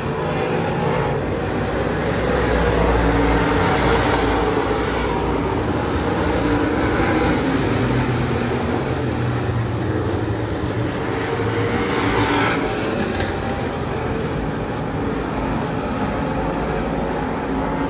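A field of dirt-track race cars running at speed around the oval, their engines blending into a loud, steady drone. It swells as the pack passes, a couple of seconds in and again around twelve seconds.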